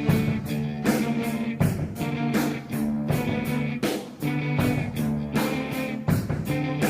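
Rock music with distorted guitar chords and a steady drum beat.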